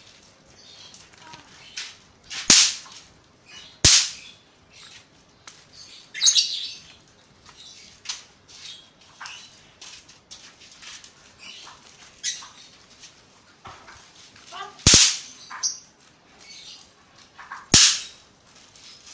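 Small firecrackers going off: four loud sharp pops spread over the stretch, two close together near the start and two near the end, with smaller cracks and snaps between them.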